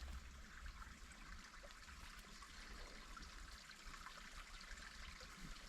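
Near silence: a faint, even hiss of outdoor background noise, with no distinct sound event.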